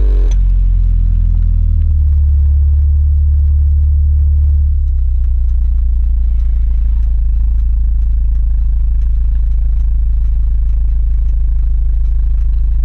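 VW Golf 7R's turbocharged 2.0-litre four-cylinder heard at its tailpipes, running with a steady low note as the car rolls to a stop, then settling to idle about five seconds in.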